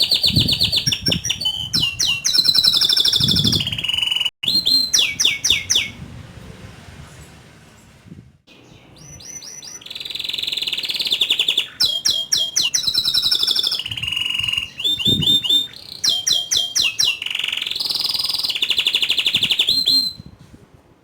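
Domestic canary singing vigorously: fast rolling trills and sharp, high repeated notes. There is a quieter pause about a third of the way through, and the song breaks off near the end.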